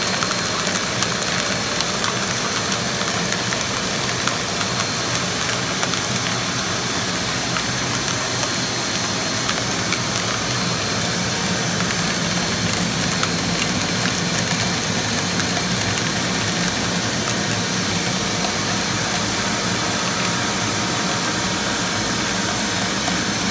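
Steady rush of the suction motor pulling air through a homemade air-column aspirator, with light ticks from cracked black walnut pieces hitting the column as the shells are sucked away from the nut meats.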